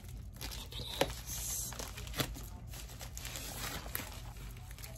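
Priority Mail envelope crinkling and rustling as hands pull and tug at it to get it open, with a couple of sharp ticks.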